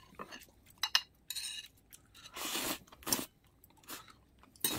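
Close-up eating sounds: chewing with crisp crunches in separate bites about a second apart, mixed with a few sharp clicks of metal chopsticks against a ceramic plate.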